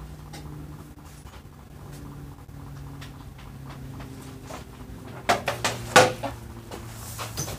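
A cluster of knocks and clattering, like cupboard doors or objects being handled, about five to six seconds in, over a low held hum whose pitch steps down slowly.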